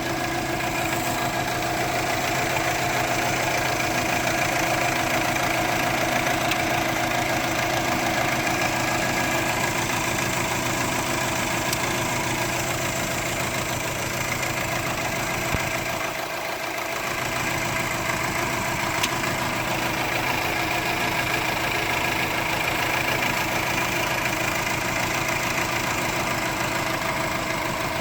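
2004 Subaru Forester XT's turbocharged 2.5-litre flat-four engine idling steadily with a misfire on cylinder 1, which new plugs, a new coil pack and a new injector have not cured.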